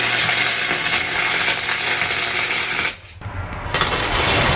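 Electric arc welder sizzling and crackling in two runs: one of about three seconds, a brief pause, then another starting near the end, with a steady low hum underneath.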